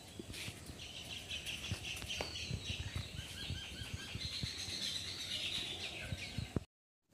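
Small birds chirping in trees: series of short repeated notes, with faint low thumps underneath. The sound cuts off shortly before the end.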